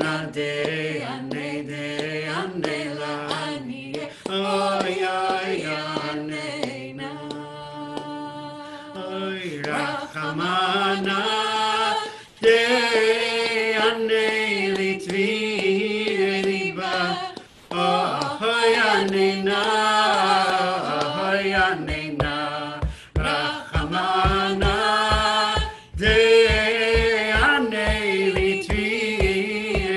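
Singing of a slow High Holiday liturgical melody, the voice holding and gliding between long notes. About two-thirds of the way through, a low steady beat joins under the singing.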